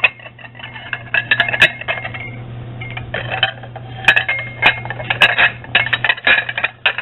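Heavy cobalt-blue glass tumblers clinking against each other and the plate beneath as they are picked up and set down: irregular clusters of sharp chinks with a short ring after each.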